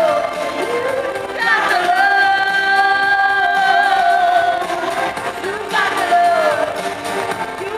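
Live pop song with a female lead vocal over band backing: the singer holds one long note for about three seconds, then sings a short phrase that falls in pitch.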